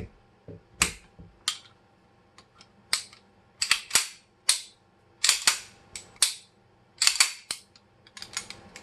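Parts of a 1911 pistol clicking and scraping as they are fitted back together by hand: about a dozen sharp metallic clicks, several drawn out into short scrapes, at uneven intervals.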